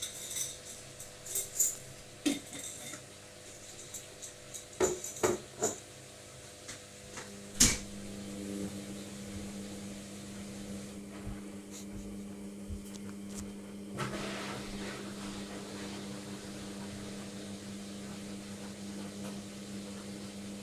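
A few sharp clicks and knocks, then a Logik washing machine starts up and runs with a steady hum, which changes slightly about halfway through.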